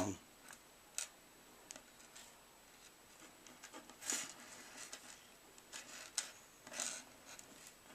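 Faint, scattered small clicks and short scratchy rustles of a wire pike trace and its treble hooks being handled and adjusted by hand.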